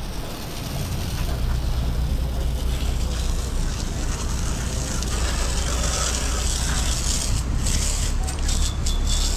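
Water from a hose spray nozzle hissing onto a teak deck, fittings and rail in the rain, over a steady low rumble. The spray hiss gets brighter and louder about three quarters of the way in.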